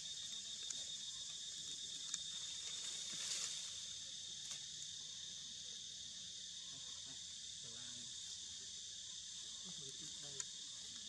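Steady high-pitched insect chorus, with a few sharp clicks standing out above it.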